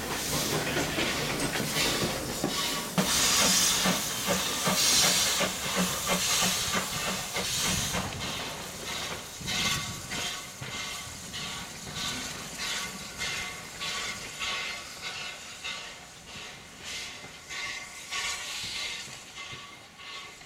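LBSCR Stroudley Terrier 0-6-0 tank locomotive working under steam: a loud steam hiss for the first several seconds, then regular exhaust chuffs, about two a second, fading as the engine pulls away.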